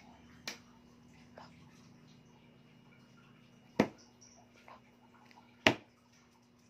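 Sharp knocks: two fainter ones in the first second and a half, then two loud ones about two seconds apart, over a faint steady hum.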